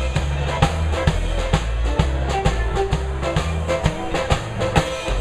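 Live rock and roll band playing a song's instrumental lead-in: a steady drum-kit beat with bass and guitar, before the vocals come in.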